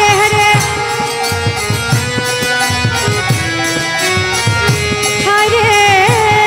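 Devotional kirtan-style music: a voice singing long, held notes over a steady percussion beat of about two to three strokes a second.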